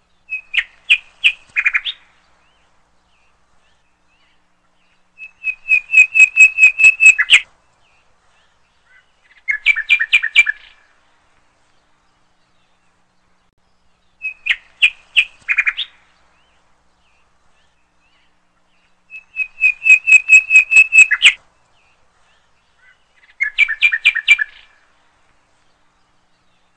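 Bird chirping from a looped recording: three phrases of rapid high chirps (a short run, a longer run, a short run) with a couple of seconds of silence between them, the same sequence played twice.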